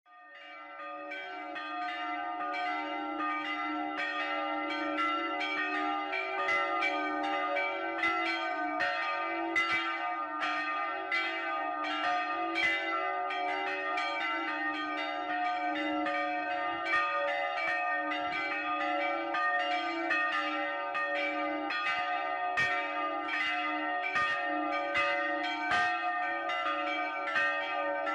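Several church bells ringing a quick, festive peal, struck again and again in uneven succession with their tones overlapping, fading in over the first couple of seconds.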